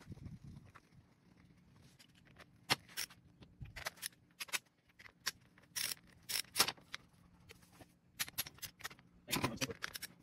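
Hand socket ratchet clicking in short irregular runs, with metal clinks, as the cover bolts of a John Deere hydraulic pump are tightened down.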